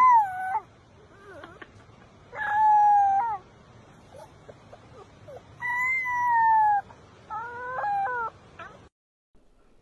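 An animal calling four times, each call drawn out for up to about a second and gently falling in pitch at the end, with short gaps between them.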